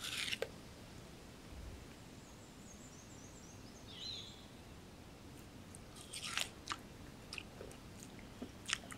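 Purple-faced langur biting and chewing watermelon: a wet crunch as it bites in at the start, then sharp crunching clicks about six to seven seconds in and twice more near the end. A bird chirps faintly in the middle.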